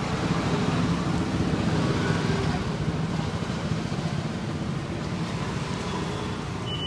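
Roadside traffic noise: a steady rumble of passing vehicles that swells about a second in as one goes by close, then eases.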